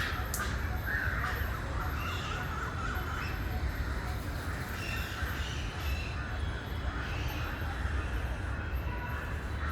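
Many aviary birds calling and chattering over one another, with cawing among them, above a steady low rumble.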